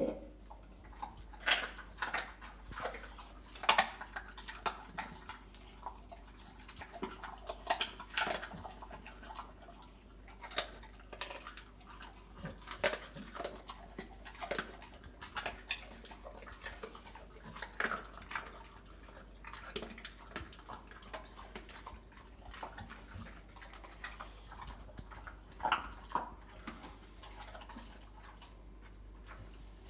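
American Bully dog chewing and crunching raw chicken bones: wet chewing with irregular sharp cracks, the loudest about a second and a half and about four seconds in.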